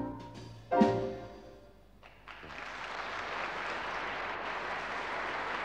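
A band's closing chord strikes and dies away, ending the song. After a brief lull, an audience breaks into steady applause about two seconds in.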